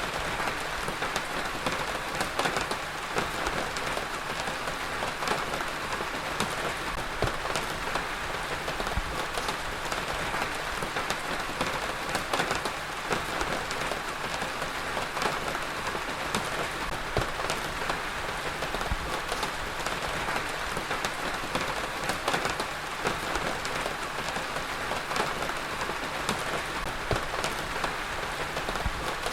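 Heavy rain falling steadily on a surface, an even hiss with many individual drops pattering and splashing through it.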